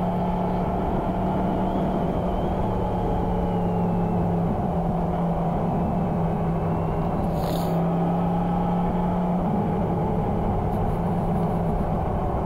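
Motorcycle engine running at a steady note while riding, over a constant rush of wind and road noise. A brief hiss comes about seven and a half seconds in.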